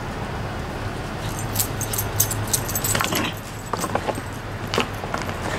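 Metal tags on a dog's collar jingling irregularly as the dog runs up close.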